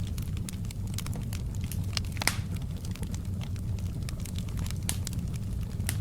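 Wood fire crackling, a steady low rumble with scattered sharp pops, the loudest about two seconds in.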